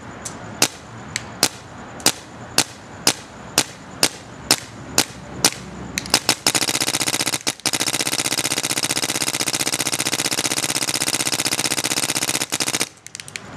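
2009 Proto Rail paintball marker firing in ramp mode: single shots about two a second for the first six seconds, then a fast continuous stream of shots for about six seconds, with a brief break near the start of the stream, stopping shortly before the end.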